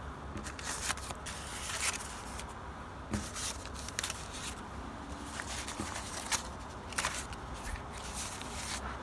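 Folded newspaper record sleeves rustling and crinkling as 7-inch 45 rpm singles are handled and pulled out, with scattered small clicks and taps.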